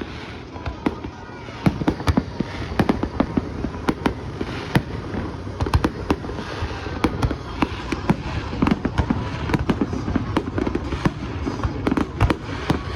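Fireworks going off in a rapid, continuous string of bangs and crackles, growing louder and denser after about two seconds.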